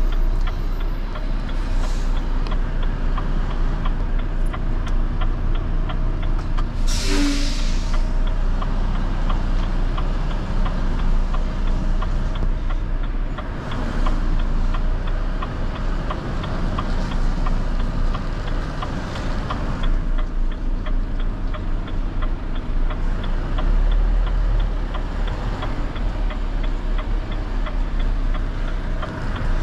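Renault T High 520 truck's six-cylinder diesel engine running steadily. A short burst of air hiss about seven seconds in.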